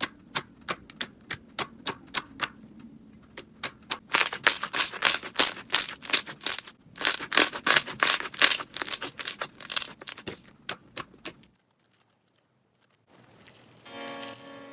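Slime being pressed and poked, giving a rapid run of sharp clicking pops, thickest in the middle, stopping a few seconds before the end; music comes in near the end.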